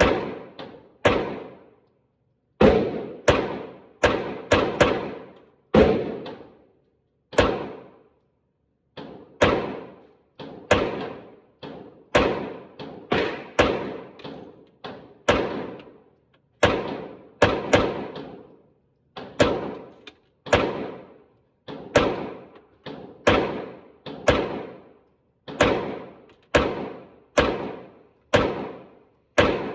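A 9mm Glock pistol fed from a Magpul 50-round drum, fired in single shots at an uneven pace of about one a second, each shot followed by a short echo.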